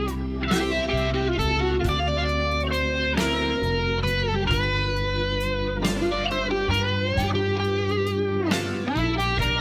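Background music: a blues-style electric guitar tune with bending notes over a steady drum beat.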